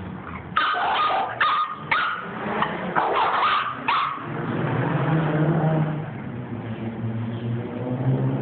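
Small dog barking: a run of sharp, high-pitched barks in the first four seconds, then a low, steady rumble for the rest.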